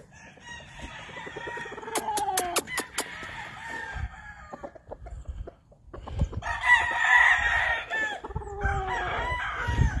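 Gamefowl roosters crowing, two crows in turn, each ending in a falling tail, the second one louder. A few sharp clicks sound about two to three seconds in.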